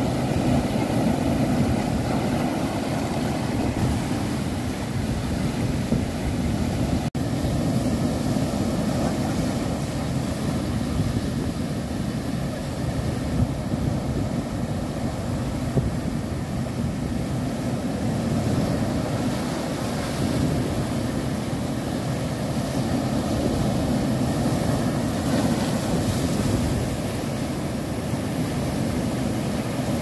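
Sea surf surging and breaking over a rocky shore, a steady rumbling wash, with wind buffeting the microphone. The sound cuts out for an instant about seven seconds in.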